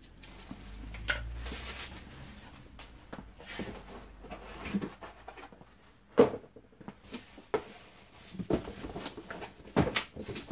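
Packaging and plastic vacuum-cleaner parts being handled while unboxing: rustling and a low rumble at first, then scattered knocks and clicks, the sharpest about six seconds in.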